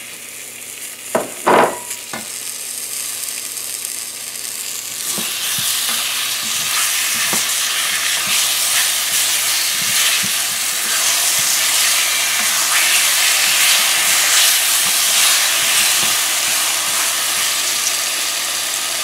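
Half-ripe mango pieces frying in hot oil with roasted ground cumin and sugar in a karahi, stirred with a silicone spoon. A few knocks about a second and a half in, then the sizzle grows louder and settles into a steady hiss.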